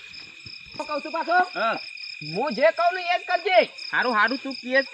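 Crickets chirping steadily, with a man's wordless calls over them from about a second in, rising and falling in pitch in repeated swoops.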